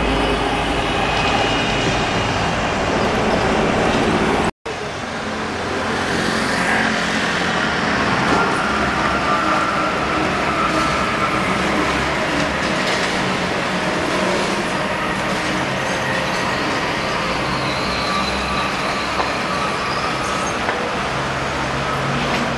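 Rubber-tyred Translohr tram running along a city street amid steady traffic noise, with a faint steady whine in the middle stretch. The sound drops out for an instant about four and a half seconds in.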